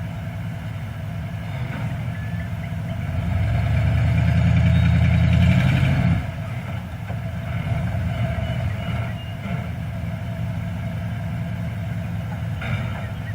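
An engine running steadily, growing louder for about three seconds near the middle, then dropping back to its earlier level.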